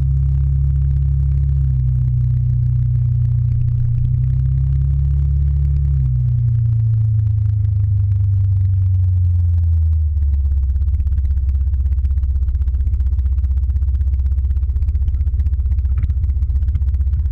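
Motor scooter engine running under the rider, heard close from a camera mounted on the scooter. Its pitch drops about six seconds in, and about ten seconds in it settles to a low, even pulsing as the scooter slows.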